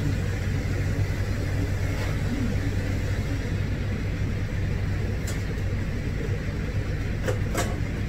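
Pet grooming dryer blowing air through its ribbed hose onto a puppy's damp coat: a steady rushing hum with a strong low drone. A few short sharp sounds come near the end.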